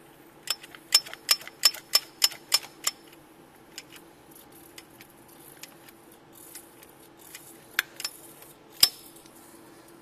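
Hand-squeezed AC dye injector gun pumping UV leak-detection dye into a car's air-conditioning system: a quick run of about eight sharp clicks, roughly three a second, as the trigger is worked. Then scattered softer clicks and a few louder clacks near the end, over a faint steady hum.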